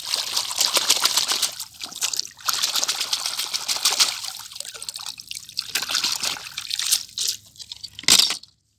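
Water trickling and splashing with small clicks as a muddy toy car is rinsed and scrubbed by hand, with a short louder splash just after eight seconds in.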